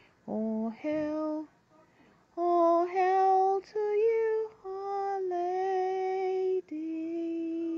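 A female voice singing the closing notes of a school anthem unaccompanied: a run of long held notes with short breaks between them.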